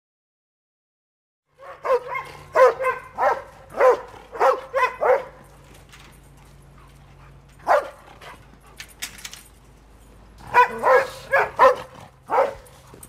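Doberman Pinscher barking. The barks start after about a second and a half of silence: a quick run of about ten barks, a single bark, then another run of about five.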